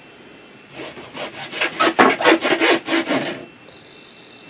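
A quick run of rhythmic rasping, scraping strokes, about four or five a second for nearly three seconds, as a lime is worked by hand for the salad.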